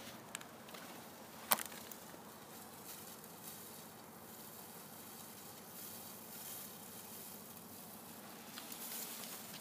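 Faint outdoor ambience with the soft steps and scuffs of someone walking on gravelly asphalt, and one sharp click about a second and a half in.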